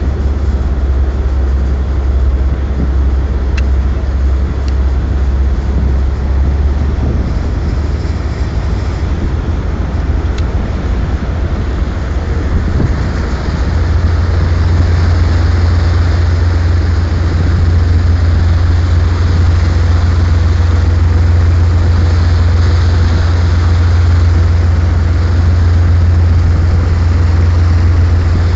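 Tugboat's diesel engines running with a steady low drone that grows louder about halfway through, with a rushing hiss over it.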